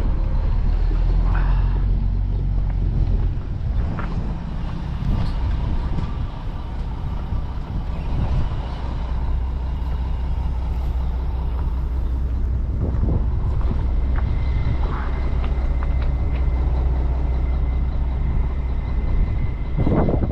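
Diesel engine of a CAT 279D compact track loader running steadily, with a few knocks and clanks along the way.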